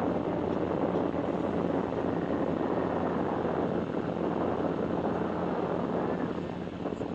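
Steady rushing noise of wind on the microphone mixed with the running electric motor and propeller of a small RC aircraft, easing off slightly near the end.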